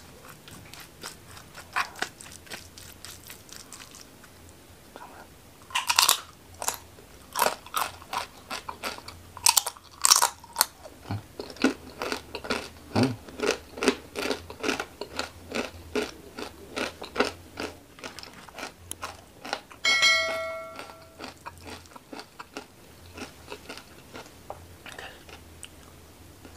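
Close-miked crunching and chewing of a crispy fried rempeyek cracker: a few scattered crunches, then a steady run of crisp bites about two to three a second through the middle, easing off to softer chewing near the end. A brief high-pitched sound about three-quarters of the way through.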